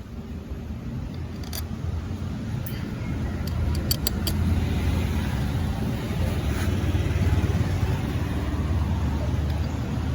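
A motor vehicle engine running with a steady low rumble that grows louder a few seconds in, with a few sharp metallic clicks near the start.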